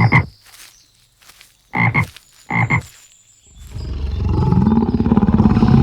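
Frog croaking: three short calls in the first three seconds. About halfway through, a long, loud tiger roar swells in and holds to the end.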